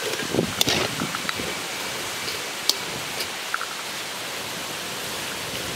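Bitter gourd chips deep-frying in hot oil: a steady sizzle, with a few sharp clicks in the first second and one more near the middle.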